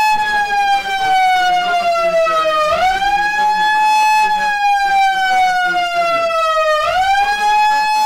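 Electronic siren from a hand-held megaphone, loud and continuous: a pitched wail that sweeps up quickly, then glides slowly down over about four seconds, jumping back up about three seconds in and again near the end.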